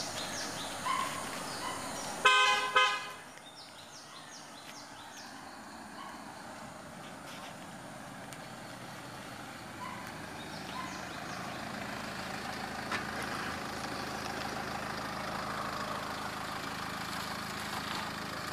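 A car horn gives two short toots about two seconds in, over light bird chirping. After that a Range Rover Evoque's engine hum slowly grows as the SUV drives up close at low speed.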